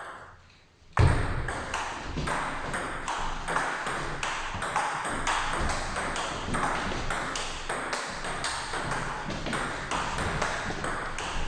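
A long table tennis rally: the celluloid ball clicking back and forth off the bats and the table at a steady pace, starting about a second in and lasting around ten seconds.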